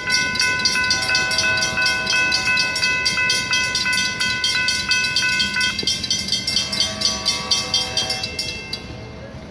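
Railroad crossing warning bells ringing fast, about three strokes a second. The main bell stops about six seconds in, a lower-pitched bell rings on a little longer, and then the ringing fades out.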